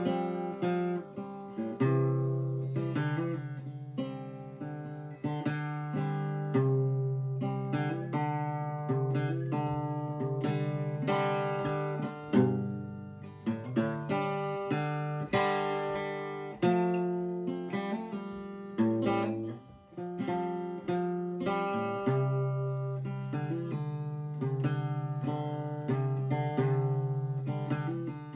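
Acoustic guitar strummed and picked: a run of chords, each struck and left ringing until it fades before the next.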